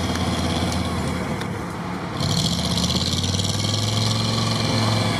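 Off-road vehicle engines running steadily at low revs, with a hiss of noise that comes in abruptly about two seconds in.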